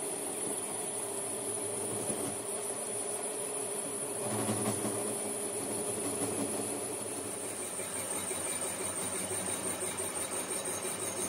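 Metal-turning lathe running, its large four-jaw chuck spinning a hydraulic jack cylinder part: a steady mechanical hum with a thin high whine, swelling briefly about four seconds in.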